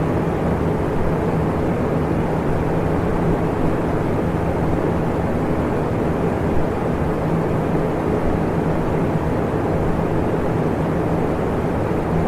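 Electric fan running steadily: an even rush of moving air with a faint steady motor hum underneath.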